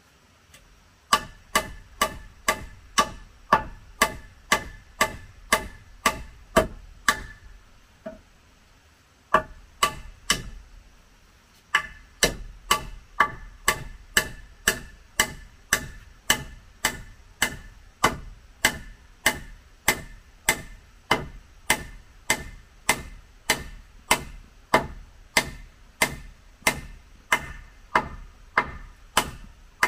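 Repeated sharp hand-tool strikes on wood, about two a second, each with a short ringing tone; they break off twice briefly and then carry on at the same pace.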